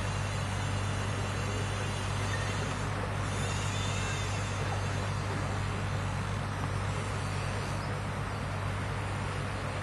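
Steady rush of a fast-flowing salmon river, with a low steady hum beneath it.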